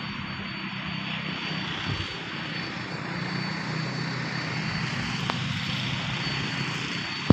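Diesel locomotive engine running steadily under power as the train pulls away, a low drone with a wide hiss over it. A sharp click about five seconds in and a loud sharp knock at the very end.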